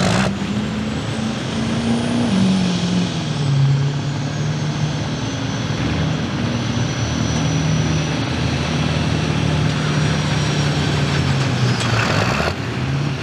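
Turbo-diesel 4x4 pickup truck engine at full throttle, pulling a 40,000-pound weighted sled. Its pitch climbs for about the first two seconds, drops once, then holds steady, with a high turbo whistle above it that rises and then slowly falls.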